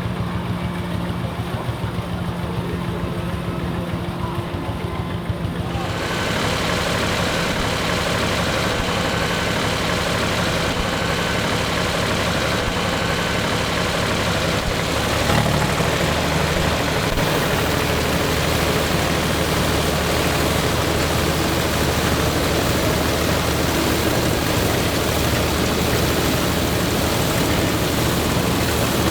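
Deutz F3L514 air-cooled three-cylinder diesel tractor engine running steadily, driving a Claas Super pull-type combine threshing wheat. About six seconds in, a broad clattering rush from the threshing machinery rises over the engine and stays, and the engine's low note shifts about halfway through.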